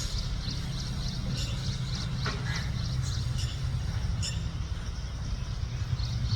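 Birds chirping in many short high notes, with one downward-sliding call about two seconds in and a sharp tick a little before the end, over a steady low hum.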